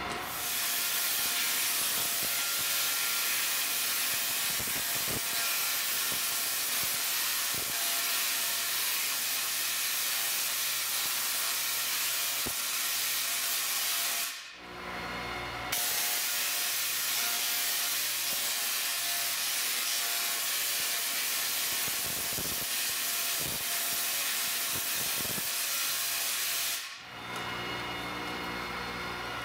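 Large Tesla coil discharging into a wire Faraday cage, its arcs making a loud, steady noise. It cuts out for about a second roughly halfway through and again near the end.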